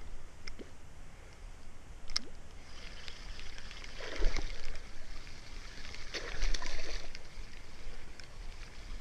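Spinning reel being wound in as a lure is retrieved, with water splashing near the boat, louder about four and six and a half seconds in, where a small pike swirls at the lure.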